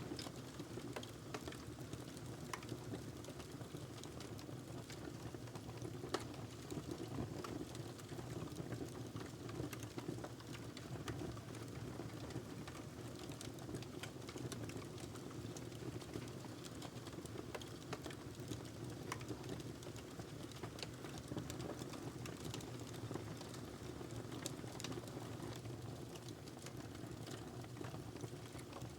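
Wood fire crackling in a fireplace: a burning log gives a steady low rush of flame under frequent small, sharp, irregular crackles and pops.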